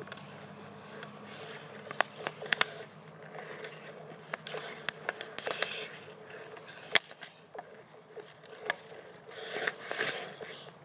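Ice skate blades scraping and carving across rough pond ice, swelling twice as skaters push off. Several sharp clacks cut through, a cluster about two seconds in and the loudest about seven seconds in.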